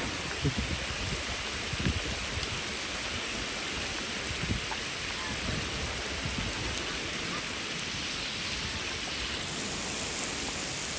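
Steady rain falling, an even hiss with a few louder, closer thuds scattered through it.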